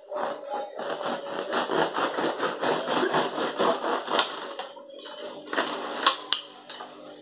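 Serrated bread knife sawing through the crust and crumb of a homemade loaf: a quick run of rasping back-and-forth strokes that eases off about four to five seconds in, followed by a few lighter scrapes and a sharp click near the end.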